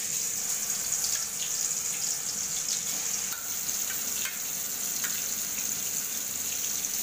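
Curd-marinated mutton pieces frying in hot oil in a kadhai: a steady sizzling hiss with scattered small pops and crackles as the wet marinade meets the oil.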